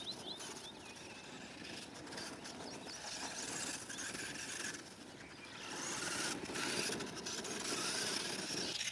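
Traxxas 1/16 Summit RC truck's brushed electric motor whining as it drives over a dirt track, with tyre and gear noise; it grows louder over the last few seconds as the truck comes closer. A bird chirps briefly at the start.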